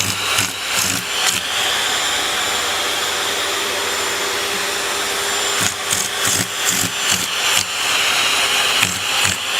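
Vacuum cleaner running steadily, with a series of short bumps and knocks in the first second or so and again from about halfway on.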